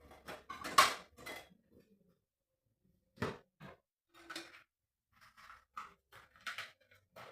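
Scattered knocks and clatter of hard household objects being handled and set down, about a dozen short sharp sounds, the loudest about a second in.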